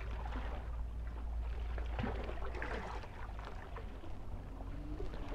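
Small waves of sea water lapping at the shore's edge in irregular splashes, over a steady low rumble.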